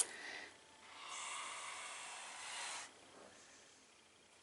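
Young Suriname boa constrictor hissing: one long, breathy hiss of about two seconds, starting about a second in. It is a defensive hiss from a snake that is upset at being handled.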